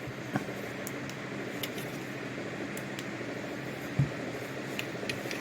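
Steady background hum in a small room, with a few faint clicks and a soft thump about four seconds in.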